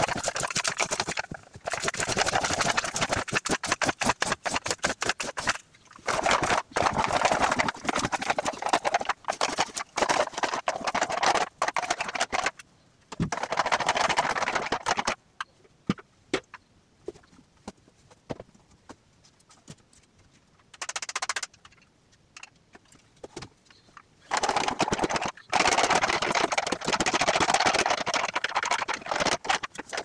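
Hand broom sweeping a floor: long runs of fast scratchy strokes, broken by pauses, with only scattered clicks in a quieter stretch in the middle.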